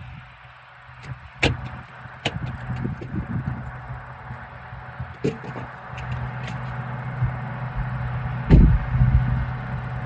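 A vehicle engine running steadily, with several sharp clicks and knocks over it; the low rumble grows louder near the end.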